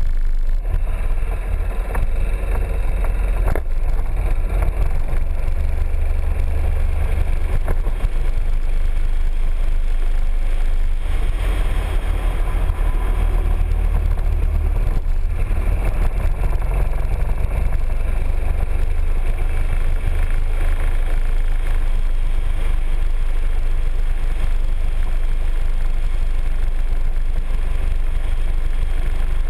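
Piaggio MP3 three-wheeled scooter riding steadily along a road, heard from a camera mounted on the scooter: a continuous engine-and-road sound with a strong deep rumble underneath.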